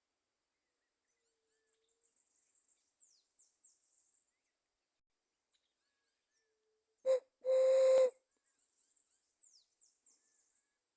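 Dove calls: faint low coos come and go, and about seven seconds in a loud close call sounds, a short note then a longer held one, with a breathy hiss. Small birds chirp thinly in the background.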